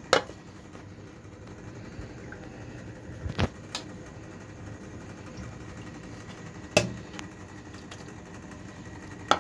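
A metal serving spoon clinking against the cooking pan and serving bowl a handful of times as the curry is ladled out, over a steady low hum.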